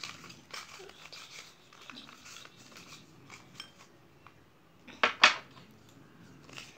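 A small folded paper chit being picked out and unfolded by hand: light rustling and small crisp clicks, with two sharp paper crackles about five seconds in as it is opened.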